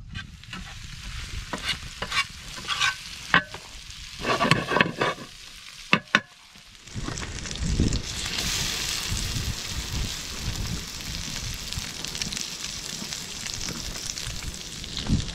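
Lake trout fillets sizzling and frying in hot oil in a metal pan over a campfire, a steady dense hiss that starts about seven seconds in. Before it, a series of sharp knocks and clicks.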